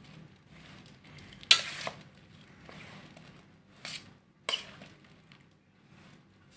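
A spatula scraping and knocking against a steel plate as oil-coated radish slices are tossed and mixed: a few sharp clinks, the loudest about one and a half seconds in, with softer scraping between.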